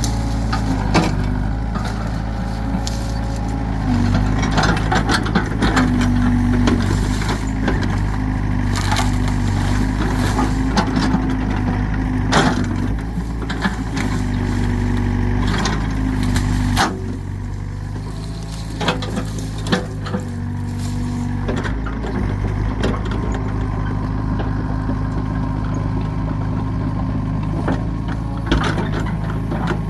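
Excavator's diesel engine running with the hydraulics working, its note stepping up in stretches as the arm takes load, amid repeated knocks and cracks from the bucket breaking up the ground and debris.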